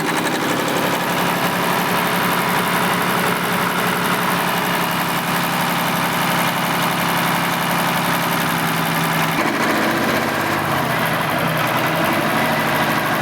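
Engine idling steadily with an even pulsing hum; its note shifts about nine and a half seconds in.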